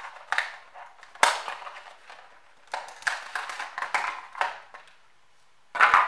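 Cardboard box being opened and its clear plastic tray handled: crinkling and scraping, with a sharp click about a second in and another loud crackle near the end.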